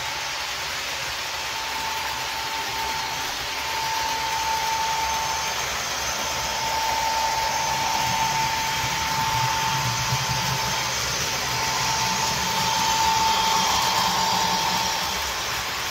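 An HO-scale Athearn EMD SD45 model's onboard sound decoder plays a turbocharged diesel prime mover running steadily through the model's small speaker. A steady high whine fades in and out over it, and the sound swells somewhat around the middle and near the end.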